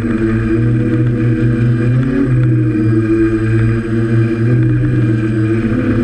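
A DJI F550 hexacopter's electric motors and propellers whirring steadily close to the microphone. The sound is a loud, continuous hum of several held tones that wavers briefly in pitch about two seconds in, as the motors adjust.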